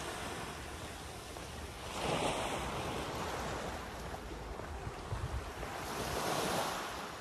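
Small sea waves breaking and washing against a seawall, swelling twice, about two seconds in and again near the end, with wind buffeting the microphone.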